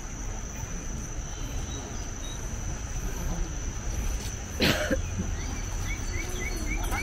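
Steady high-pitched insect drone from the forest over the low background of a crowd walking on a path, with one loud cough about two-thirds of the way through. A few short chirps come near the end.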